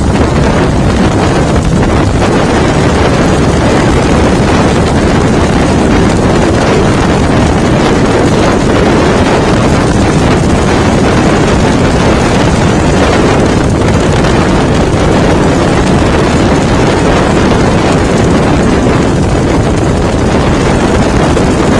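Motorcycle on the move, its engine and road noise mixed with heavy wind buffeting on the microphone, steady and loud throughout.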